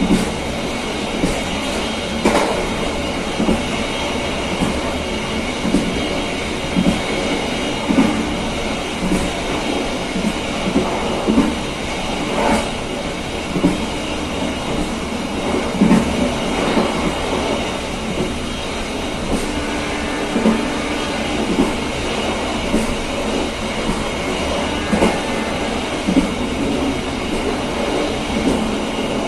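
Passenger train running along the track, heard from aboard: a steady rumble and hiss with the wheels knocking irregularly over the rail joints, and a faint steady high whine.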